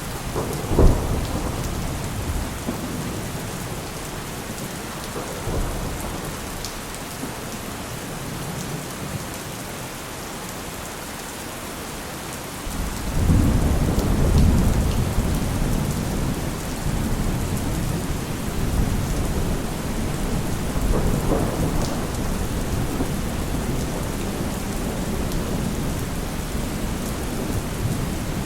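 Heavy rain falling steadily, with thunder: a sharp crack about a second in, then a long, deep rumble that starts about halfway through and slowly dies away.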